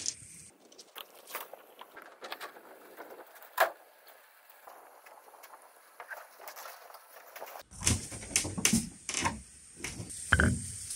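Scattered light clicks and taps of hand-tool work, with one sharper click about a third of the way in. From about two-thirds through, louder knocks and thuds follow one another irregularly.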